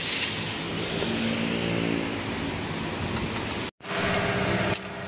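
Workshop noise with an engine running steadily. The sound breaks off for an instant a little past halfway, then a steady motor hum carries on, with a sharp click near the end.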